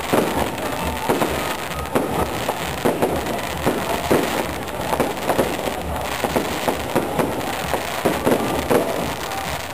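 Aerial fireworks shells bursting overhead one after another, about two bangs a second without a break.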